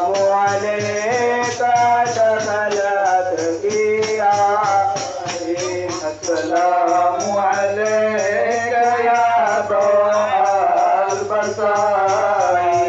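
Men singing a devotional chant to a fast, even beat on hand-held frame drums (daf) with jingles, about four strokes a second.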